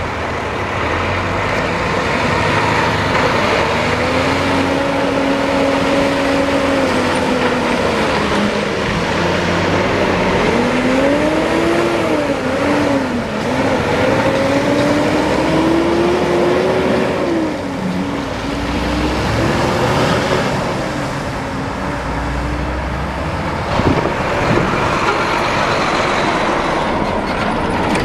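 Semi truck engine working through its gears, its pitch climbing and then dropping back several times, over a steady road rumble. There is a short sharp knock near the end.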